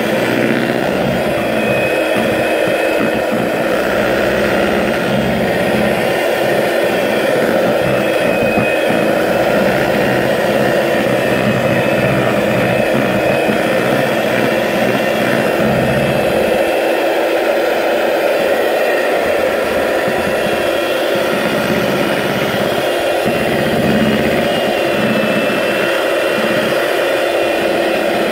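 Electric mixer running steadily at speed, beating butter and icing sugar into buttercream, with a faint high motor whine over a steady whirr.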